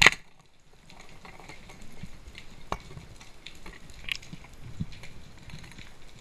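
A sharp, loud snap of a band-powered speargun firing underwater, followed by scattered small clicks and crackles of the underwater surroundings as the diver moves toward the rock.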